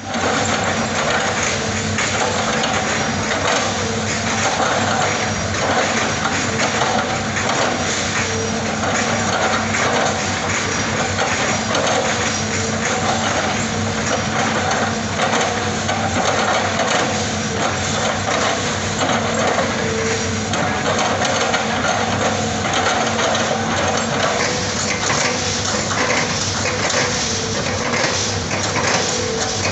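Hitachi excavator's diesel engine running steadily, with dense crunching and clattering over it throughout.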